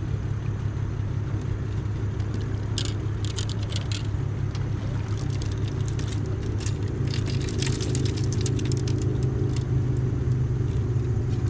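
A boat motor running steadily with a low hum, growing a little louder in the second half, with a scatter of light clicking and rattling through the middle.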